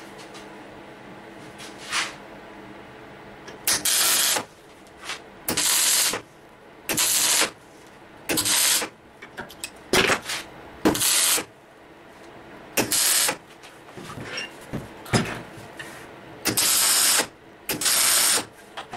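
MIG welder tack-welding steel plates together: about eight short bursts of arc noise, each under a second, beginning about four seconds in.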